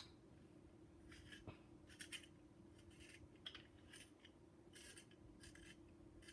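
Faint, short scratching strokes of a Crayola colored pencil colouring on a sock, coming irregularly about once or twice a second, over a faint steady hum.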